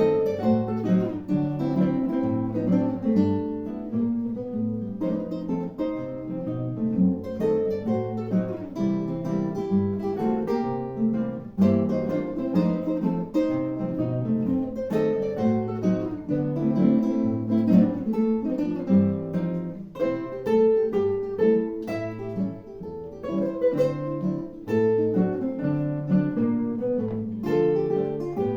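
Acoustic guitar playing solo: a plucked melody over moving bass notes, sounding continuously.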